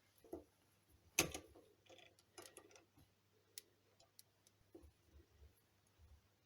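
Faint, scattered clicks and light knocks of a small brass workpiece being handled at a lathe, the strongest about a second in.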